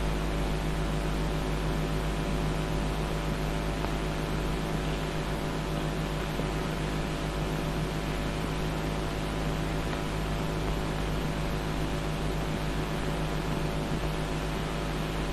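Steady hum with an even hiss, unchanging throughout, with no other sound.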